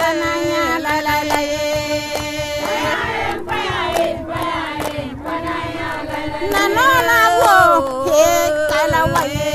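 Music: voices singing a chant together, with long held notes and sliding pitches, over sharp percussion strikes.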